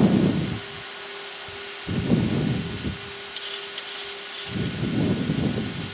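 Boeing 737-800 flight-deck background noise: a steady hum with three rushing swells, each about a second long, near the start, a little after two seconds in and near the end.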